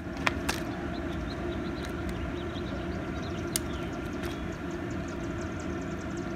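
Steady low outdoor rumble with a handful of sharp clicks from empty plastic water bottles being handled and set down on asphalt, and faint high chirping.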